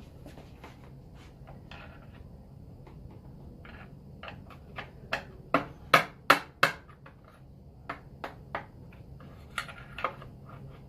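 Small hammer striking an old flathead screwdriver used as a drift, knocking the leftover star nut pieces out of a bicycle fork's steer tube. Light scattered taps at first, then a run of sharper, louder blows about five to seven seconds in, followed by a few more taps.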